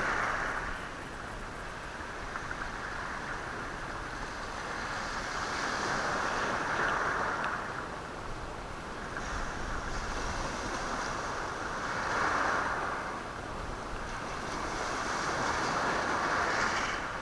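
Sea waves breaking on a stony shore and rolling the stones. The surge swells and fades about every five to six seconds.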